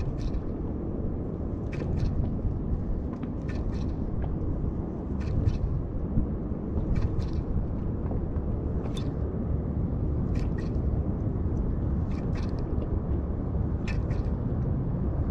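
Steady low rumble of wind and water noise on open sea from a small inflatable boat, with short light ticks every second or two, often in pairs.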